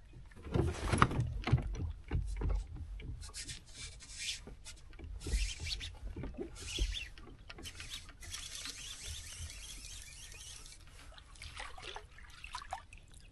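A kayak being handled on the water: irregular knocks and thumps against the hull, rubbing and scraping, with a few seconds of steady hissing water or splash noise partway through.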